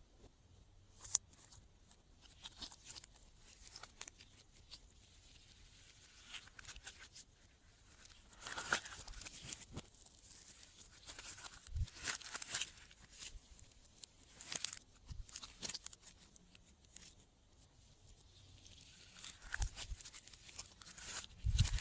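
Glossy slime being squeezed, stretched and mixed by hand, giving irregular sticky crackles, pops and clicks.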